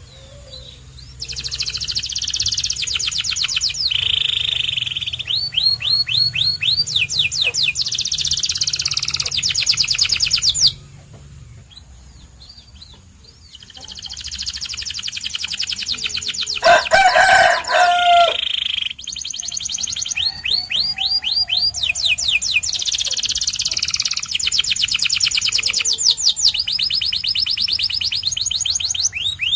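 Canary singing in phrases of fast, high trills and rolls, breaking off for a few seconds about a third of the way in and then resuming. Midway a louder, lower call of about two seconds cuts across the song.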